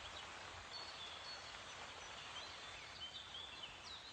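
Faint outdoor ambience: a steady hiss with small songbirds chirping, several short high whistled calls and glides scattered throughout.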